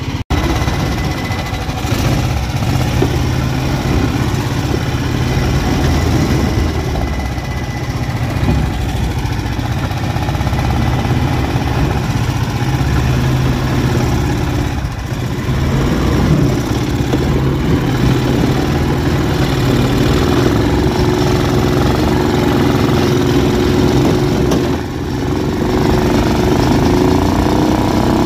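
The engine of a 1980s Argo 8x8 amphibious ATV running steadily under way, heard close over the open engine bay, with a brief drop in level about 25 seconds in. The owner says it runs good.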